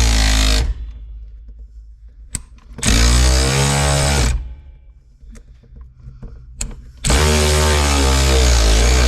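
Impact wrench hammering on a rusted-in seat bolt in three bursts: one stopping about half a second in, another lasting about a second and a half near the middle, and a third starting about seven seconds in, with quieter pauses and a few clicks between.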